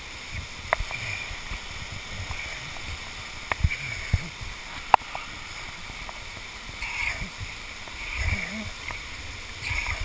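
Steady rush of water from a waterfall, broken by a few sharp metal clicks from the carabiners and rappel gear and low bumps of handling against the camera.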